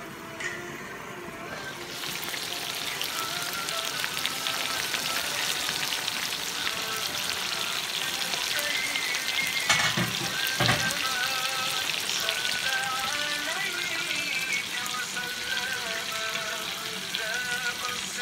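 Fish curry sizzling and bubbling in a frying pan: fried fish steaks simmering in masala sauce with peppers, mushrooms and tomatoes. The sizzle starts about two seconds in and is steady, with two sharp knocks around the middle.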